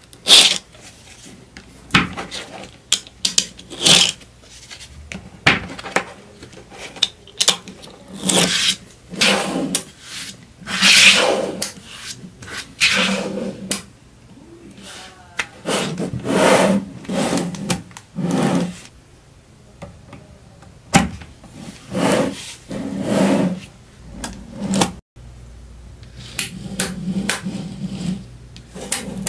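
Small neodymium magnet balls clicking and clattering as they snap together and are pressed into a block, with irregular sharp clicks and longer rattling, scraping sounds as rows of balls slide and roll against each other.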